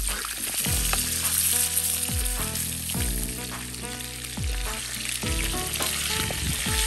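Bacon-wrapped chicken breasts sizzling in fat in a frying pan, with a steady hiss, as they are turned with metal tongs.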